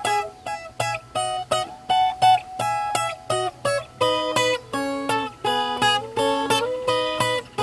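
Viola caipira (Brazilian ten-string folk guitar) playing an instrumental passage of plucked chords in a steady rhythm, about three notes a second, moving to lower notes about halfway through.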